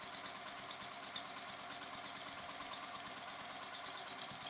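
Juki sewing machine with a walking foot running at a steady, slow quilting speed, the needle and feed stitching in a fast even rhythm as a straight line is sewn through quilt layers.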